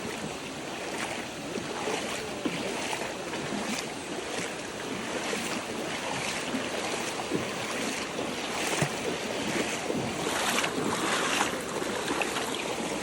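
River water rushing over rocks, a steady wash with many short splashes through it.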